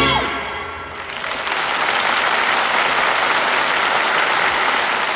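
Studio audience applauding steadily at the end of a dance number, starting as the music's final chord dies away in the first second.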